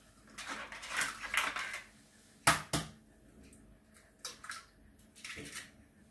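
Eggs being cracked open into a Thermomix food processor's bowl: sharp taps of shell, the two loudest a fraction of a second apart about two and a half seconds in, with the crackle of shells being pulled apart.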